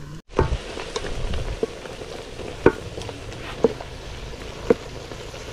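Wooden spoon stirring a meat and okra stew in an aluminium pot, knocking against the pot about once a second over a steady sizzle.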